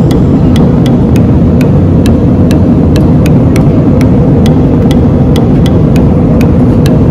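Steady loud cabin rumble of an Airbus A320-family jet's engines and airflow while climbing after takeoff, with faint light ticks about two or three a second.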